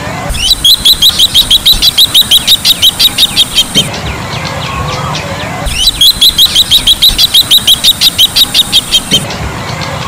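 Bronze-winged jacana calling: two bouts of rapid, evenly repeated high notes, about six a second, each bout lasting around three seconds.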